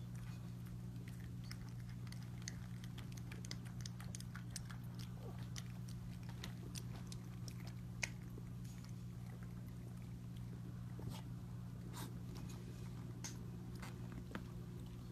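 Husky puppies lapping water from a stainless steel bowl: irregular small wet clicks and laps over a steady low hum, with one sharper click about eight seconds in.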